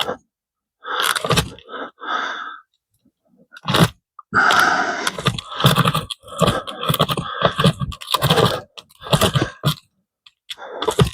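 Pocket chainsaw, a toothed chain pulled back and forth by hand loops, rasping through wood in repeated strokes about one a second, with a short pause a couple of seconds in and another near the end.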